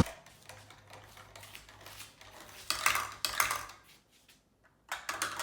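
Marbles rolling and clattering through a toy marble run, with bursts of clicks and knocks as they drop through the pieces, loudest around the middle and again near the end.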